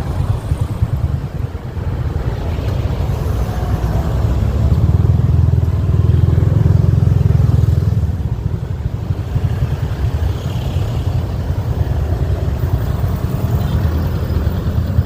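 Motorbike underway with its engine running and wind rumbling on the microphone; the rumble swells about midway through and eases a little toward the end.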